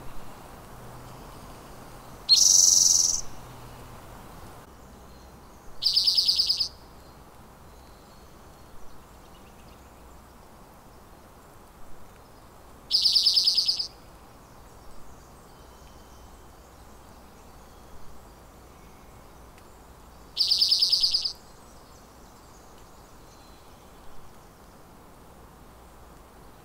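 Spotted towhee singing: four rapid, buzzy trills of about a second each, spaced several seconds apart, with a few faint short notes between them.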